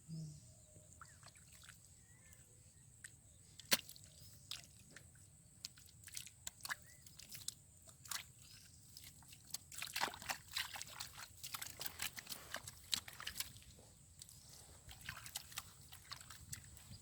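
Water sloshing and dripping in scattered small splashes, thickest around ten to thirteen seconds in, with one sharp knock about four seconds in.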